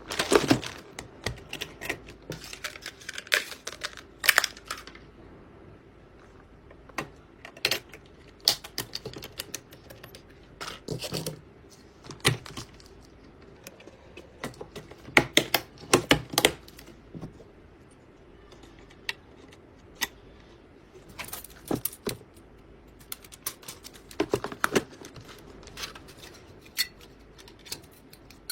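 Irregular sharp clicks, snaps and taps, some in quick clusters, from computer hardware being handled and fitted together during PC assembly.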